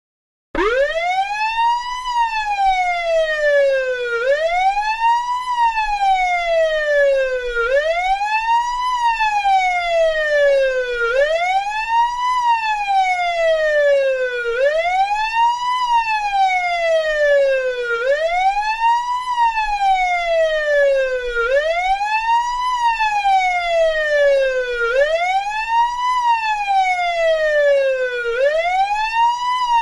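Police car siren sounding a steady wail, its pitch rising quickly and then falling more slowly, over and over, about once every three and a half seconds. It starts about half a second in.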